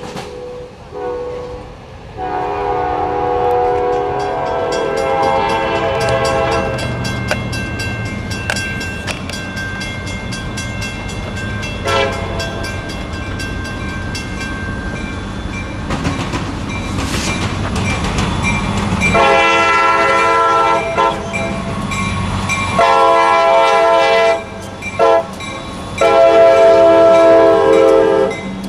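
Diesel locomotive air horn: a held chord about two seconds in, then near the end the grade-crossing sequence of two long blasts, a short one and a final long one as a freight train comes by. The train's rumble runs in between.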